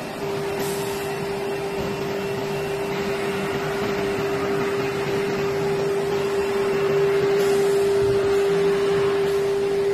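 Wood door CNC sizing machine and its auto-loading line running: a steady mechanical hum with one constant held tone over an even whir, growing a little louder toward the end.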